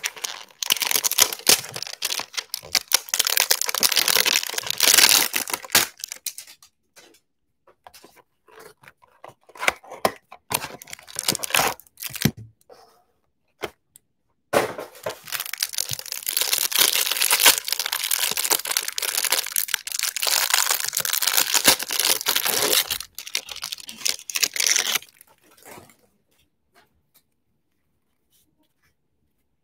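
Cardboard and plastic packaging of a trading-card hanger box being torn open and crinkled by hand, in two long stretches of crackling tearing with shorter bursts between; quiet over the last few seconds.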